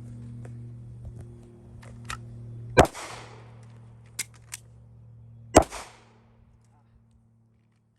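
Two handgun shots about three seconds apart, each with a short echo trailing off, with a few fainter sharp clicks in between.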